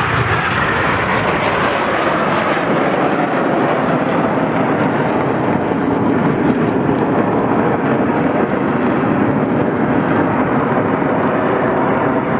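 Jet aircraft engine noise at an airshow: a loud, steady rush that holds even throughout, with no clear swell or fade.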